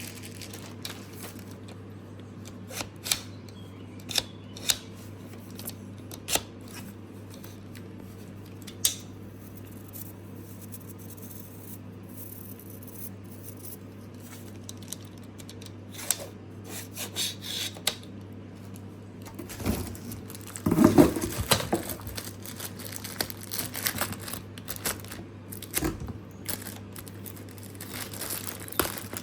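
Packaging being handled during an unboxing: scattered sharp clicks and rustles of plastic and cardboard, with a louder burst of crinkling about twenty seconds in.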